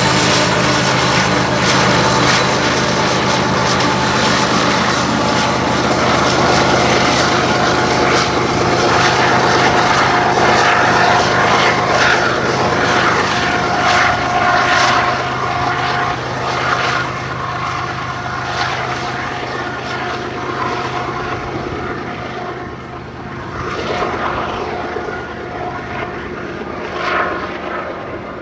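Loaded BNSF coal train passing: a diesel locomotive's engine drone with steady tones over the noise of the rolling cars. It grows quieter after about halfway through.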